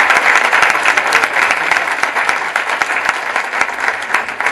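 Audience applauding, gradually thinning out.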